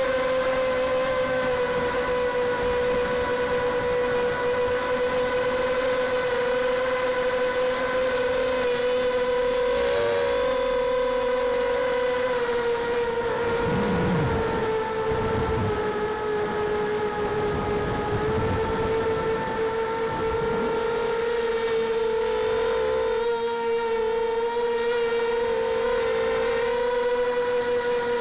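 Multirotor drone's electric motors and propellers whining steadily, heard close up from on board, the pitch drifting slightly as the throttle changes. A few low whooshes come through in the middle.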